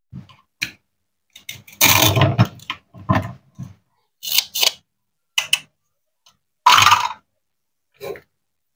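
Velcro-joined plastic toy fruit halves being cut and pulled apart with a plastic toy knife: a series of short rips and clacks, two of them longer and louder, with plastic tapping on a wooden cutting board.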